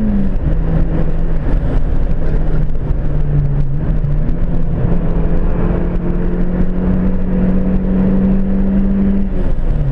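Turbocharged 1.8 Zetec four-cylinder engine of a Ford Fiesta XR2i under hard acceleration, heard from inside the cabin with road noise beneath it. The engine note drops with an upshift just after the start, climbs steadily through the gear, and drops again with another upshift near the end.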